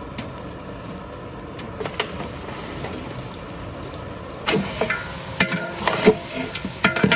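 Mutton being added to a large pot of frying spices and stirred: a steady rushing hiss, then from about four and a half seconds in a run of knocks and scrapes from the ladle and the meat going in.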